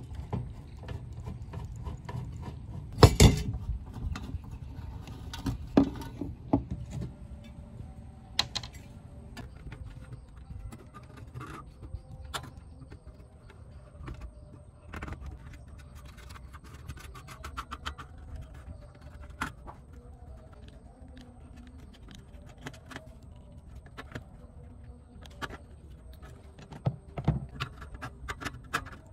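Hand tools working on a rusty steel amplifier chassis: a screwdriver and pliers clicking, scraping and clinking against the metal. The loudest moment is a pair of sharp metal knocks about three seconds in, with more knocks near six seconds and near the end.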